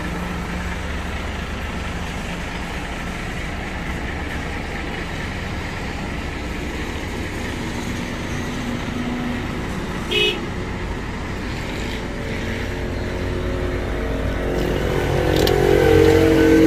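Steady motor-vehicle engine running with road and traffic noise, a short high beep about ten seconds in, and an engine getting louder toward the end.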